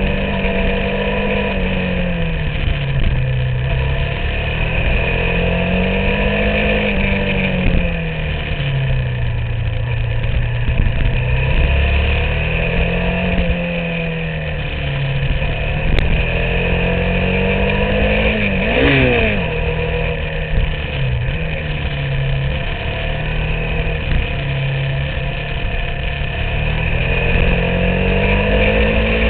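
Motorcycle engine at riding speed, its pitch rising and falling again and again as the throttle is opened and closed through bends and gears, with wind rumbling on the microphone.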